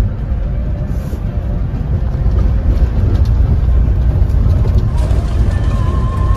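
Bus travelling on the road: a steady, deep rumble of engine and road noise.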